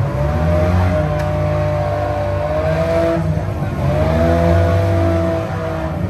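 Demolition derby cars' engines running hard in the dirt arena, several at once, revving up and down.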